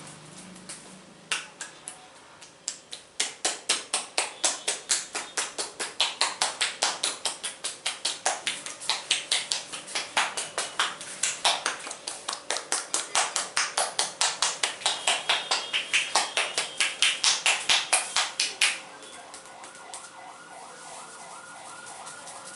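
Rapid percussive hand strikes of a head massage, the hands slapping the head at about three to four strikes a second. They start a few seconds in and stop abruptly near the end, leaving a faint repeating warble.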